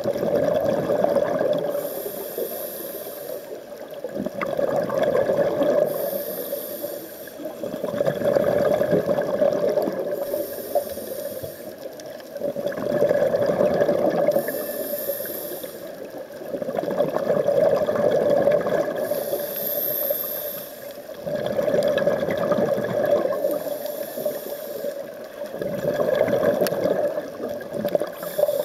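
Scuba diver breathing through a regulator underwater: a short hiss on each inhale, then a rush of exhaust bubbles on each exhale, about one breath every four seconds.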